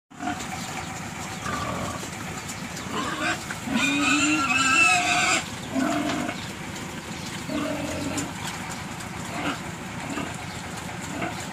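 Pigs crowding at a feed trough, giving short low grunts every second or two. About four seconds in, one pig lets out a loud, high squeal lasting about a second and a half.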